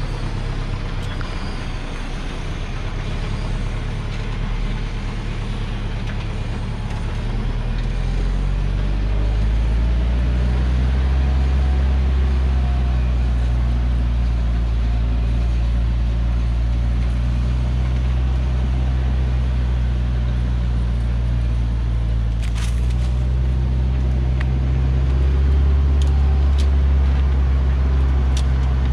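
Heavily loaded Hoa Mai log truck's diesel engine running steadily at low revs as it crawls down a steep dirt track, its low drone growing louder about eight seconds in. A few sharp clicks come later on.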